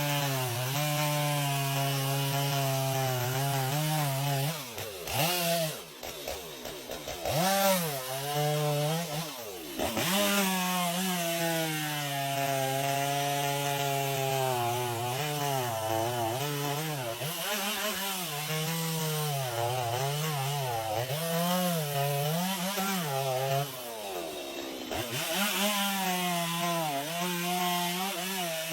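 Chainsaw running and cutting wood, its engine pitch wavering as the chain bites. The engine drops and revs back up several times about five to ten seconds in, and dips briefly again near the end.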